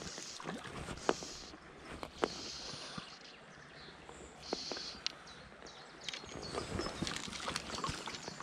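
Shallow, gravelly burn running with small splashes, while fly line is stripped in by hand through the rod guides, giving short hissing rasps and light clicks, as a small wild brown trout is played on nymphs.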